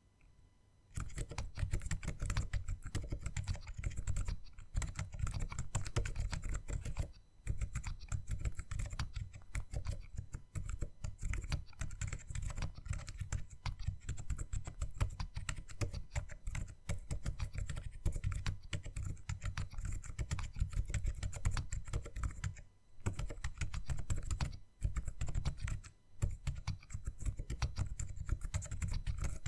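Continuous fast typing on a handmade low-profile mechanical keyboard with Kailh Choc V2 Silent Linear switches and DSA keycaps: muted, thuddy keystrokes with little click, the switches soldered to a thin PCB with no plate in a 3D-printed case on foam. Typing starts about a second in and pauses briefly a few times.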